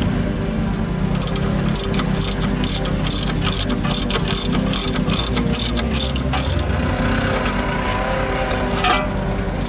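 Ratchet wrench clicking as a socket is turned on a front suspension bolt, in irregular runs of sharp clicks, over a steady low hum.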